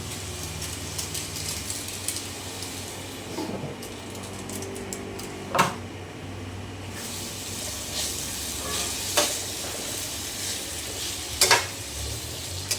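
Pot of vegetables hissing as it cooks on the stove while being stirred, with a few sharp clanks of a utensil against the pot, the loudest about halfway through and near the end.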